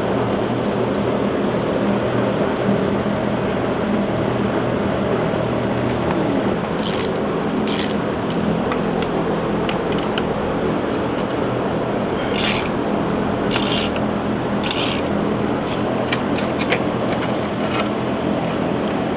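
A steady droning hum runs throughout, with scattered sharp metallic clinks and scrapes of hand tools and parts on a car being stripped down, most of them in the middle of the stretch.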